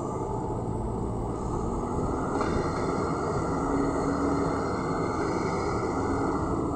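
Hydraulic excavator's diesel engine running under load as the machine swings and dumps a bucket of soil into a dump truck: steady, dense engine noise whose hum shifts pitch a little and swells slightly midway.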